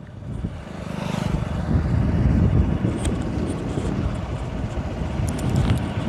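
Motorcycle running along a road with wind rushing over the rider's microphone, growing louder over the first two seconds and then holding steady.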